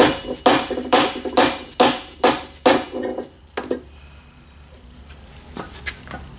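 Hammer tapping a warmed ring gear onto a Chevy 10-bolt differential carrier, metal on metal with a short ringing after each blow. It strikes about twice a second for nearly three seconds, gives one more blow, then a couple of lighter knocks near the end.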